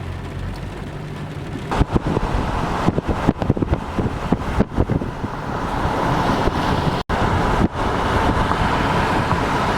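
Car road and engine noise from inside a moving car, with a cluster of sharp knocks or buffets from about two to five seconds in, then a steadier, louder rush of noise.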